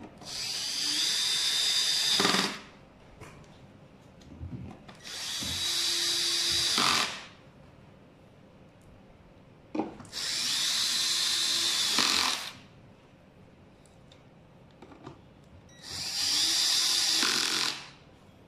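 Cordless drill-driver driving the deck-plate screws home on an electric scooter: four runs of about two seconds each, each one stopping abruptly as a screw seats, with faint clicks between them.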